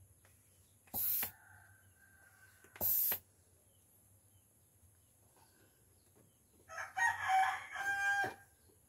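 A rooster crows once near the end, a crow lasting about a second and a half. Earlier, two short bursts of hiss come about two seconds apart.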